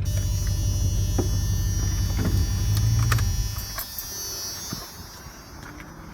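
A vehicle engine running as a low steady hum, which drops away about three and a half seconds in, with a few sharp clicks and a faint high whine.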